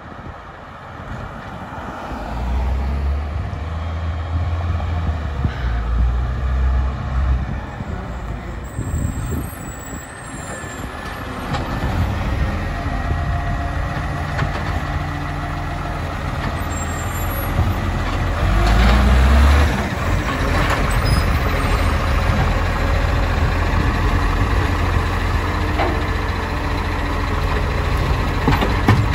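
A Dennis side-loading garbage truck's diesel engine running as it approaches and stops, with the hydraulic side arm lifting and tipping a wheelie bin into the hopper about midway through.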